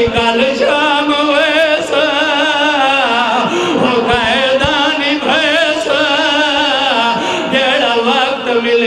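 A man singing a Punjabi lament (marsiya) through a microphone and loudspeakers, long drawn-out notes that waver with heavy vibrato.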